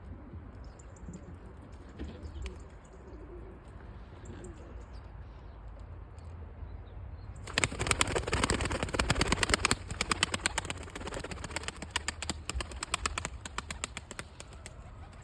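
Pigeon wings flapping in a loud, rapid flurry that starts about halfway through and runs for several seconds before easing off, over a low background.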